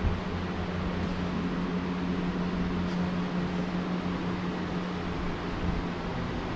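Steady air-conditioning or ventilation hum with an even hiss and a low constant tone, and one soft thump right at the start.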